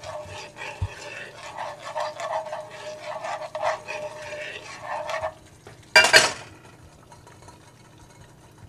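Metal spoon stirring and scraping melted dark chocolate in a metal saucepan over a double boiler: quick repeated scrapes and clinks with a faint ringing from the pan, then a single loud clank about six seconds in, after which it goes quieter.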